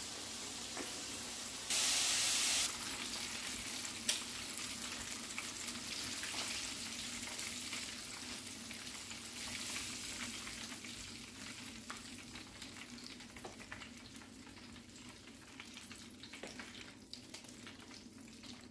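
Coated chicken strips deep-frying in a pot of hot oil: a steady crackling sizzle full of fine pops, growing quieter toward the end. A louder rush of noise cuts in for about a second near the start.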